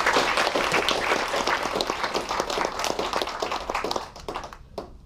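Audience applauding, many hands clapping at once, thinning out to a few scattered last claps near the end.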